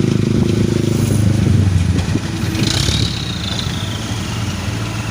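Heavy diesel engine of an excavator or dump truck running steadily, with a faint high whine that falls slightly in pitch about midway.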